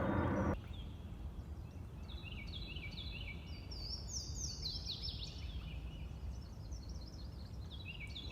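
Songbirds singing: many short, repeated down-slurred notes, with a run of higher notes climbing in the middle, over a faint steady low rumble. A louder rush of noise cuts off suddenly about half a second in.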